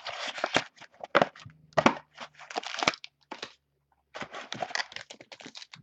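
Plastic packaging crinkling and tearing in irregular bursts with sharp crackles as a sealed trading-card box is opened, with a short lull a little past the middle.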